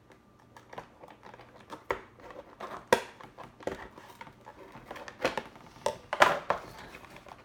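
Plastic and cardboard toy packaging being handled, crinkling with scattered sharp clicks; the loudest crackles come about three and six seconds in.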